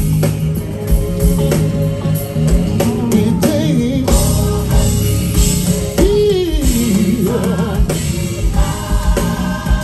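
Live band playing gospel music amplified through a PA: singing over drum kit, bass and guitar, with regular kick-drum hits and a wide bending melodic line about six seconds in.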